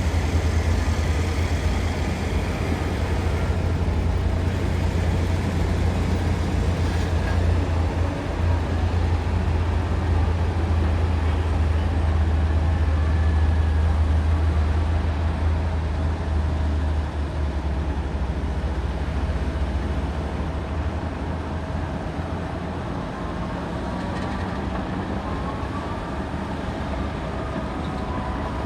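Komatsu D275AX bulldozer's heavy diesel engine running with a loud, deep drone while the dozer works, easing off a little about two-thirds of the way through. A few faint squeaks sound over it.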